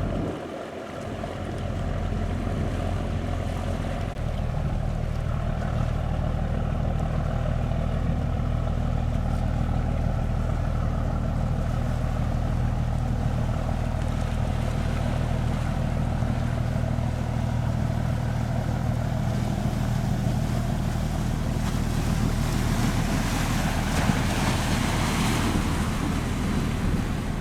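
Boat engine running steadily with a low hum, with water washing and wind on the microphone; the hiss of water and wind grows louder a few seconds before the end.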